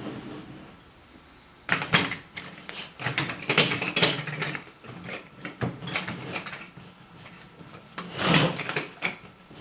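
Riqq being handled while its wet fish skin is rubbed and pressed onto the frame: irregular rubbing, clicking and rattling that starts about two seconds in and comes in clusters, with a lull in the middle.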